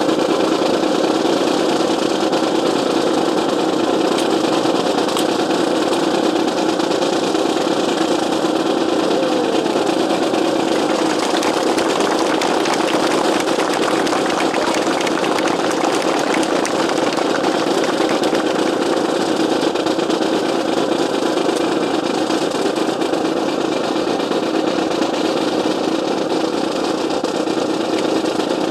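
Loud, steady engine noise, unchanging in pitch and level.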